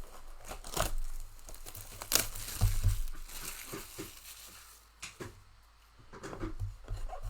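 Plastic wrapping on a trading card mega box crinkling and tearing as it is ripped open, in irregular crackles with a short quieter pause about five seconds in.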